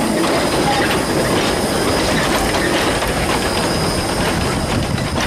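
Narrow-gauge freight wagons rolling past close by, their wheels clicking over the rail joints in a steady clatter.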